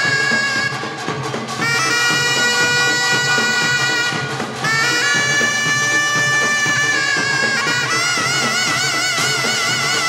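Taepyeongso, the Korean conical double-reed shawm, playing long held notes. Each new phrase scoops up into its pitch, and the last held note carries a wide vibrato.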